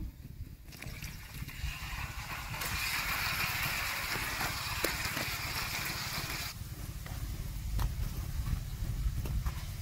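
Water poured into a wok of hot chili oil, hissing and sizzling: it builds over the first couple of seconds, is strongest from about three seconds in, and cuts off suddenly about six and a half seconds in. A steady low rumble runs underneath.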